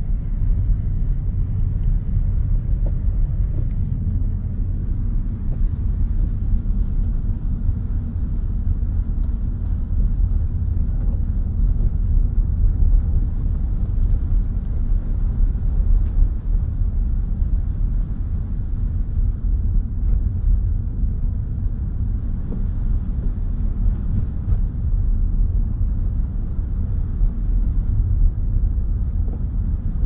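Steady low rumble of road and tyre noise inside an electric Tesla's cabin as it drives over a snow-covered road.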